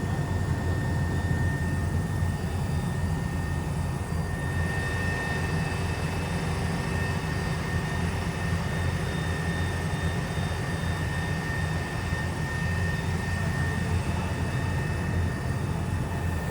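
Steady aircraft engine drone with a constant high whine.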